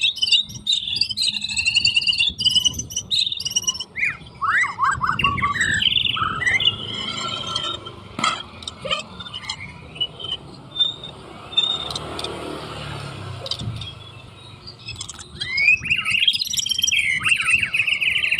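White-rumped shama (murai batu) singing a varied run of loud whistled phrases and quick falling notes. It thins out in the middle and comes back dense about fifteen seconds in.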